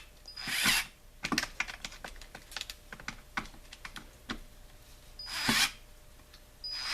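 A small battery-powered mini tool run in short bursts, about half a second in and again near the end, each swelling and then stopping. Between the bursts comes a quick run of light clicks and rattles.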